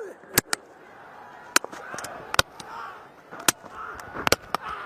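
Cricket ball striking the stumps and sending the bails off in a bowled dismissal: a run of sharp wooden cracks and clatters, about six in all, over crowd noise.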